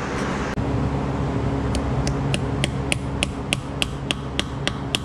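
Light metallic hammer taps, about three a second and a dozen in all, starting a little under two seconds in, on a hand tool held against a seized bolt in an LS7 engine's cam plate. Each tap rings briefly.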